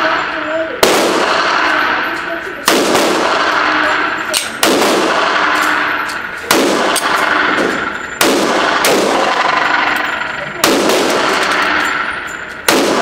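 Pistol shots from a 9mm Smith & Wesson M&P 9 Compact firing Tula steel-case ammunition: loud single reports about every two seconds, each followed by a long ringing echo. The owner says the pistol fails to cycle this steel-case ammo about 90% of the time.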